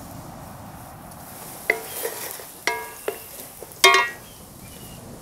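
Utensils clinking against an iron wok and clay dishes: four sharp strikes that each ring briefly, the last the loudest, over a faint steady sizzle of frying oil.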